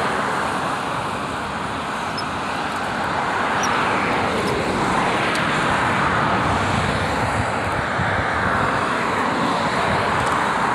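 Steady rushing background noise that slowly swells and eases, with no distinct events.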